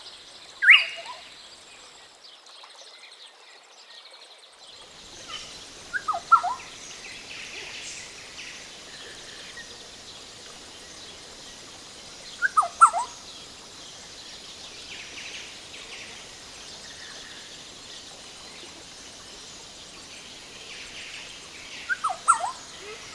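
Green-headed oriole calling: one loud note sliding downward about a second in, then three brief phrases of a few quick falling notes, roughly six to ten seconds apart, over a steady high background hiss.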